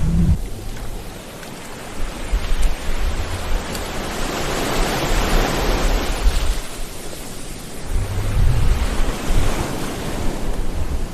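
Ocean waves breaking and washing up on the shore in a steady wash of surf. It swells twice, the first time building about two seconds in and the second near the end.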